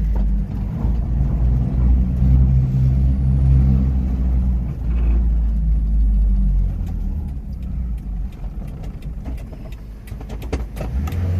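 Subaru Sambar minitruck's small engine running under load with a raspy, diesel-like note, easing off and getting quieter after about seven seconds, with a few clicks near the end. The owner suspects the rasp comes from a loose heat shield or baffling rather than engine knock.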